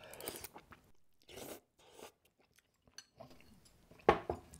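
Quiet mouth sounds of someone eating spicy Korean instant noodles: the noodles are drawn in off chopsticks and chewed, in faint scattered bursts. A short, loud burst comes near the end.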